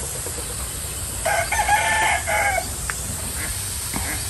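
A rooster crows once in the background, a cock-a-doodle-doo about a second and a half long, starting about a second in. Under it runs the steady hiss of a pressurized hand pump sprayer misting seedling trays.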